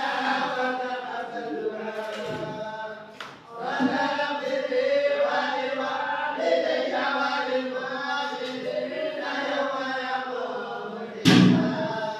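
A group of tolba, Quran reciters, chanting together in unison in a long, drawn-out recitation. A thump cuts in near the end.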